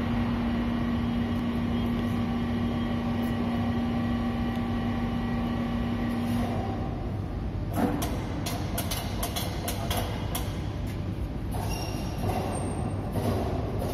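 Electric crane hoist motor running with a steady whine as it lowers a motorized tong for wooden cable drums, stopping about six and a half seconds in. After that comes a run of scattered clicks and metal knocks as the tong settles around the drum, over a constant low machinery hum.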